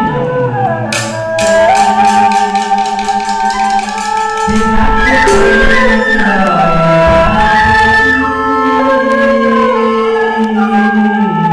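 Vietnamese chèo folk song: a man singing a slow, ornamented melody, accompanied by a bamboo flute, a hand-struck barrel drum and a small drum beaten with sticks. A quick run of stick strokes comes about a second in, and the drum grows heavier near the middle.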